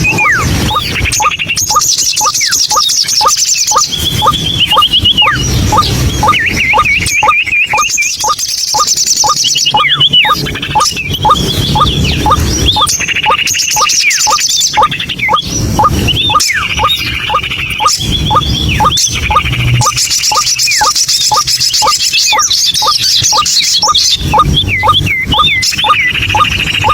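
White-breasted waterhen calling: a rapid, unbroken run of repeated short notes, about four a second, with higher wavering, squawking notes over them.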